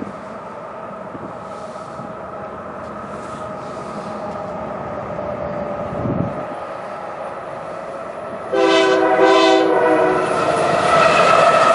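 Union Pacific diesel freight locomotives approaching, their running sound growing steadily louder. Then a multi-note locomotive horn sounds suddenly as a loud chord for about two seconds, and a second loud, steady tone starts near the end as the locomotives draw near.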